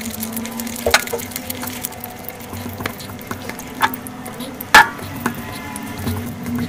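Fingers mixing and squishing biryani rice with gravy on a plate, a run of small sticky crackles and clicks, with one sharper click nearly five seconds in.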